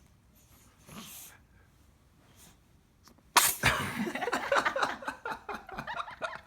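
A three-month-old baby's sneeze: one sudden, sharp burst a little past halfway, set off by a twisted tissue tickling its nose. Faint breaths come before it, and a busy run of small clicking sounds follows.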